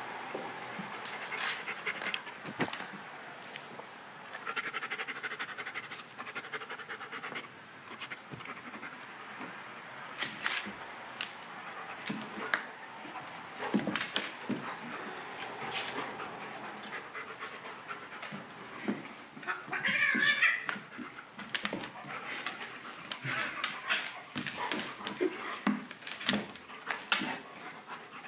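A large dog panting hard while play-wrestling with a cat, with scuffling and claw clicks on a hardwood floor. About twenty seconds in there is a brief high whine, the loudest sound.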